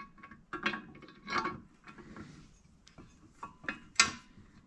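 Metal bumper brackets and bolts knocking and clinking as the pieces are handled and fitted together: a string of light knocks with a short ring, the sharpest about four seconds in.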